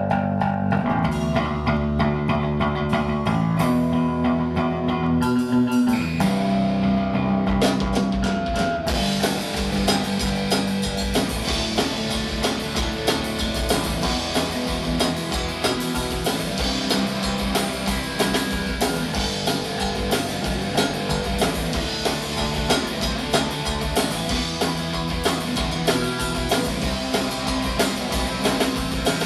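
Punk rock band playing live: electric guitar, bass and drums in an instrumental intro, with the full band coming in fuller and denser about nine seconds in.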